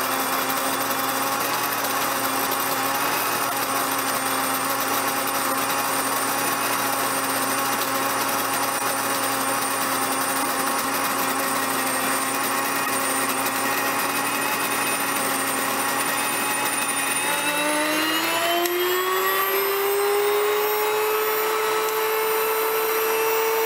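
Whisper Mill electric grain mill grinding wheat berries into flour: a steady high motor whine. About three-quarters of the way through, the pitch rises and settles higher as the last grain clears the hopper and the mill runs empty to clean its grinding heads.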